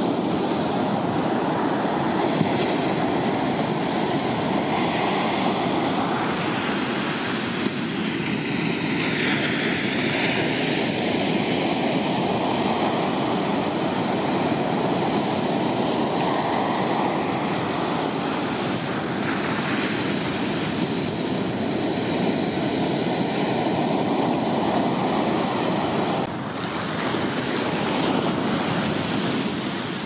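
Large typhoon-swell ocean surf breaking and washing ashore: a continuous rush of white water, with a brief swelling whoosh about eight seconds in.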